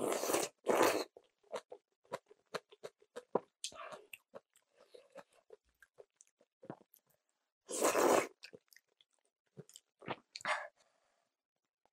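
Close-miked eating: two loud slurps of kalguksu noodles with kimchi right at the start and another about eight seconds in, with many small crunchy chewing clicks between them as the kimchi is chewed.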